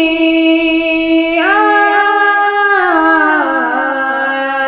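A woman's voice reciting the Quran in melodic tajweed style, drawing out one long vowel, the prolonged 'fī' before 'āyātinā'. The held note steps up in pitch about a second and a half in, then slides down in steps near the end.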